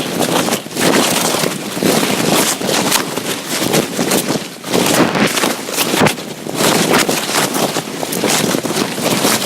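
Foam packing peanuts being rustled and crunched together, a dense crackling rustle that comes in uneven surges.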